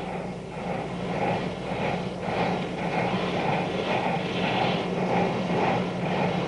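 Union Pacific Big Boy articulated steam locomotive working hard, its exhaust chuffing in a steady rhythm of about two beats a second over a constant low hum, building over the first second.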